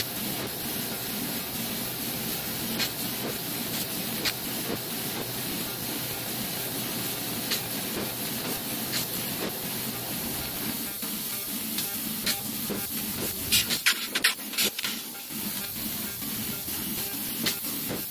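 CNC fiber laser cutting holes in 11-gauge square tubing: a steady hiss of assist gas from the cutting head, broken by sharp pops and crackles as the beam pierces and cuts, with a cluster of pops about two-thirds of the way in.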